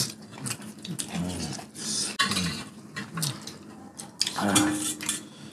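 Metal chopsticks and spoons clinking and scraping against stainless steel bowls of spicy noodle soup, with eating noises in between.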